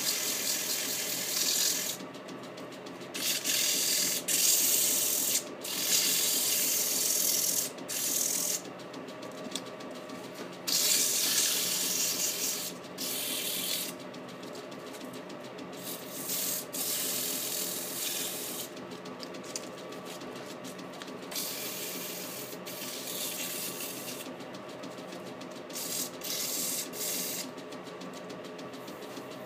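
Wood lathe running with a steady motor hum, while something held in the hand rubs against the spinning wooden base in repeated hissing passes of one to three seconds, with quieter gaps between.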